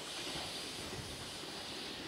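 Fading running noise of the JR East E491 'East i-E' inspection train, a faint hiss and low rumble of wheels on rail dying away as it recedes.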